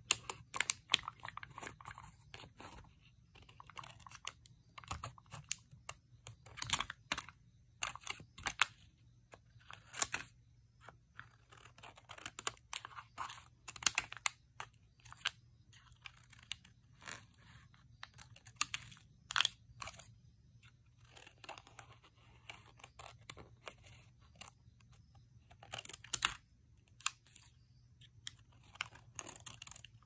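Scissors snipping around glossy foil stickers: irregular crisp snips and clicks, with rustling and crinkling of the sticker sheets between cuts.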